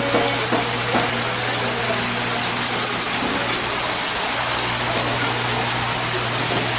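Water running and bubbling steadily in aerated live-seafood tanks, over a steady low hum.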